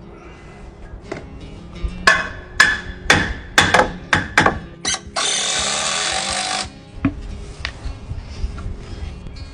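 A hammer striking wood about eight times in quick, uneven succession, then a loud, steady hiss lasting about a second and a half that stops suddenly.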